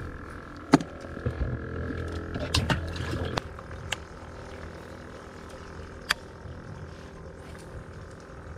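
Sharp knocks and clicks of handling on a fishing boat, the loudest just under a second in and a cluster around three seconds, over a steady mechanical hum.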